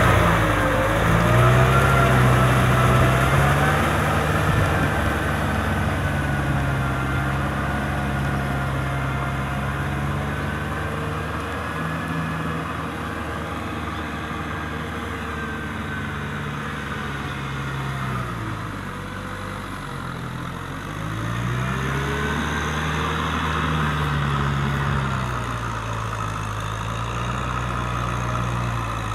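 Kubota M6040 SU tractor's four-cylinder diesel engine running steadily as it pulls a rotary tiller through wet paddy mud. The sound gets quieter as the tractor draws away; around twenty seconds in the engine pitch dips briefly, then recovers and the sound grows louder again.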